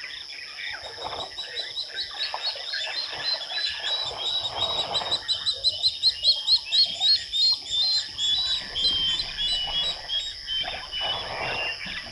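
Waterhole night chorus: frogs croaking over a steady high insect trill. A rapid run of high chirping notes, several a second, grows louder towards the middle and then steps down in pitch.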